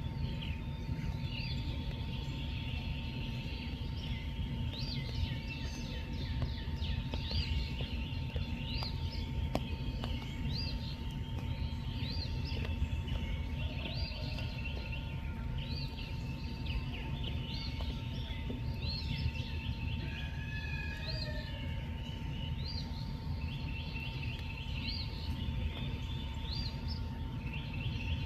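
A chorus of animal calls: short rising chirps repeating about once a second, with bands of rapid trilling, over a constant low rumble and a faint steady hum.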